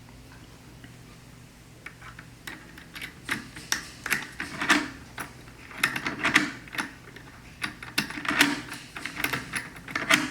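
Sliding patio door handle and lock hardware being worked by hand: a run of irregular clicks and knocks in clusters, starting about two seconds in, over a faint steady hum.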